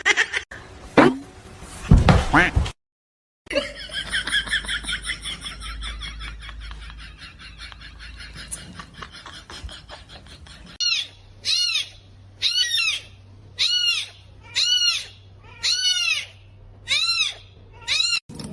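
A cat, likely a kitten from the high pitch, meowing over and over, about once a second, each meow rising and falling in pitch; a run of quick high-pitched chirps comes before it.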